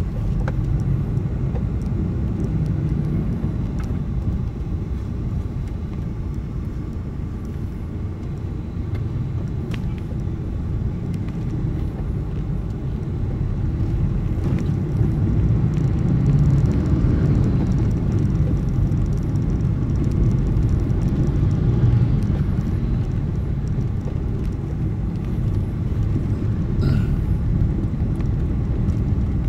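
Steady low rumble of a vehicle on the move, engine and road noise together, growing somewhat louder in the second half.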